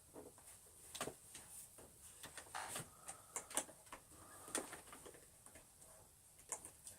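Scattered light clicks and knocks from working the handle-release pedal and handle of an old Hoover Junior upright vacuum cleaner, with the motor off.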